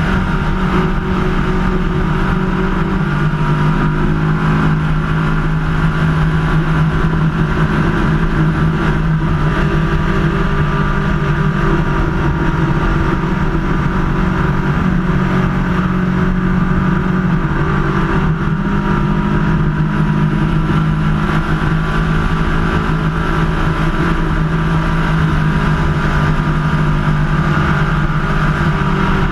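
Superclass ski race boat's engine running flat out at racing speed, a loud steady drone whose pitch dips slightly a few times, with the rush of wind and water over the open cockpit.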